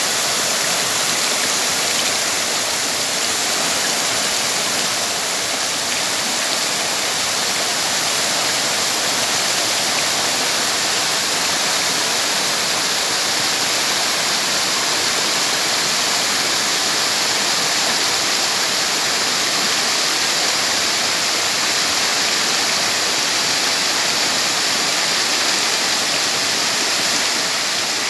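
Waterfall rushing, a loud, steady roar of falling water.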